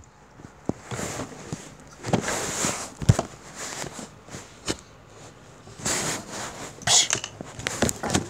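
Handling noise: irregular clicks, knocks and brief rustles as hands move plastic LEGO figures and the phone, the loudest rustles about two and seven seconds in.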